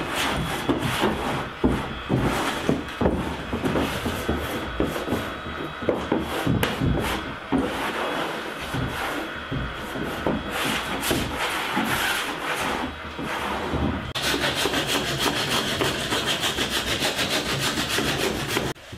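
Irregular rubbing and scraping strokes of a hand tool working a plywood kayak deck edge. About 14 seconds in, this gives way to a handsaw cutting wood in quick, even strokes.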